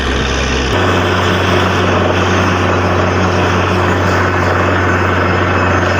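Borewell drilling rig running loud and steady: a deep engine drone under a broad rushing noise, the drone stepping up in pitch under a second in.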